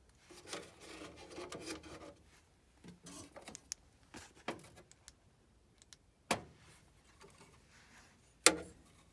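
Hand tools and small metal parts handled during work on a gas furnace's pilot assembly: a rubbing scrape for about two seconds, then scattered clicks and two sharp knocks, the louder one near the end.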